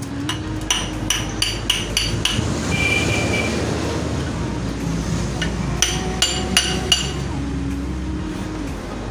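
Hammer blows on a steel punch held against a turbocharger's shaft and compressor-wheel end, sharp metal-on-metal strikes that ring: a quick run of about eight in the first two seconds or so, then four more about six seconds in. A steady low rumble runs underneath.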